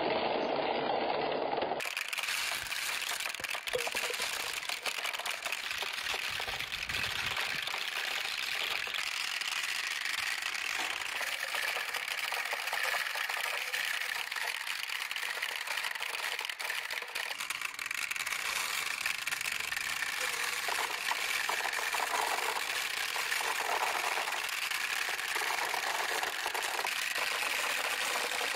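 Water running steadily down the clear plastic chutes of a toy water marble run and splashing into its basin, mixed with the steady whir of the toy's small electric pump. Glass marbles roll along in the water stream.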